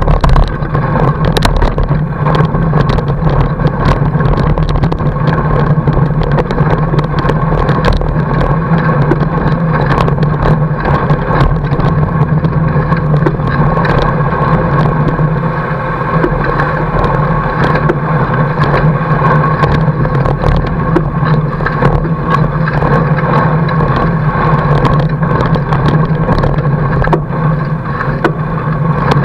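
Fat bike riding over snow: a loud, steady rolling drone from the wide tyre, with frequent clicks and rattles throughout.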